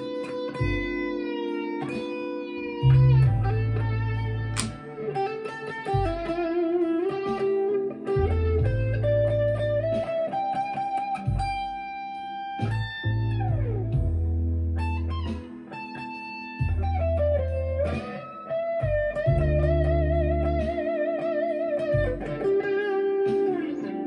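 Chapman ML1 Standard Traditional electric guitar played through a Marshall MG15CFX amp with a Behringer vintage overdrive pedal: a lead line of held notes with vibrato and string bends, and a quick slide down about halfway through.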